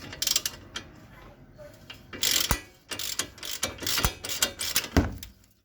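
Socket ratchet wrench clicking in quick bursts as it spins a loosened nut off, with a few sharp metal knocks among the clicks.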